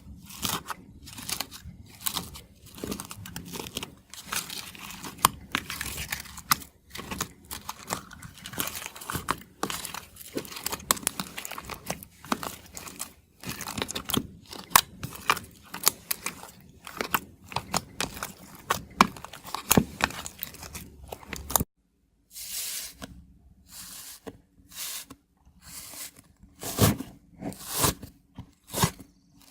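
Iceberg slime, with its hardened crust, crackling and crunching as it is pressed and squished: rapid, irregular crackles. About three-quarters of the way through the sound stops abruptly, then resumes with sparser, sharper crackles.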